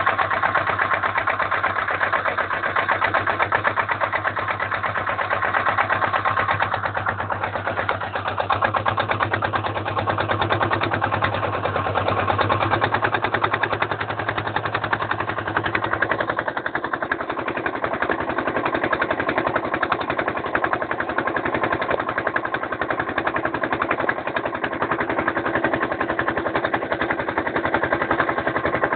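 Boat engine running steadily with a fast, even chugging beat. A low hum underneath drops out about halfway through.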